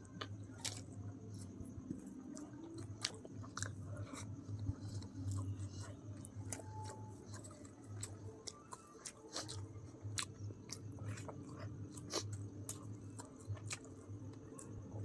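A person chewing chicken biryani close to the microphone, with irregular sharp mouth clicks throughout, over a steady low hum.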